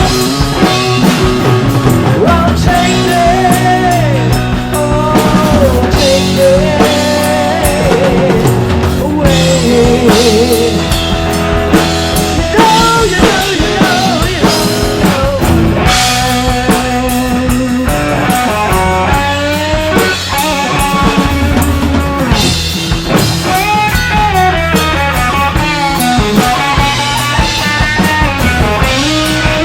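Rock band playing an instrumental passage: a lead guitar with bent, wavering notes over a steady drum kit, bass and rhythm guitar.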